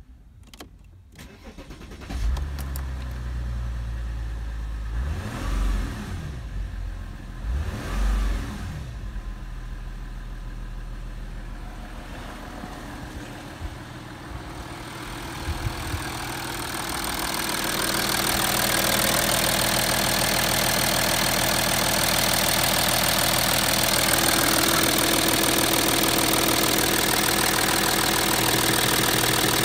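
Audi A6 C6 2.7 TDI V6 diesel engine (BPP) starting about two seconds in and revved briefly twice, then running steadily at idle. In the second half it is heard louder and closer, from the open engine bay.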